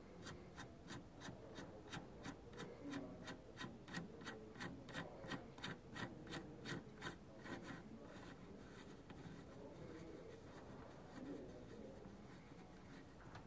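Faint, even metallic clicking, about three clicks a second, as the adjusting cone of a SRAM G8 internal gear hub is spun off the axle threads by hand. The clicking stops about seven and a half seconds in, leaving only faint rubbing.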